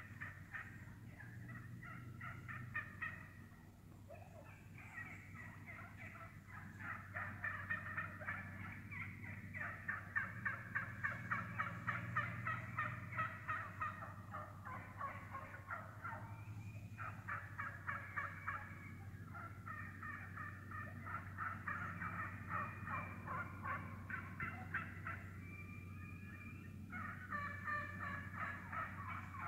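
A flock of wild turkeys calling as they feed, several birds at once: overlapping clucks and purrs in quick runs of short notes, loudest around the middle.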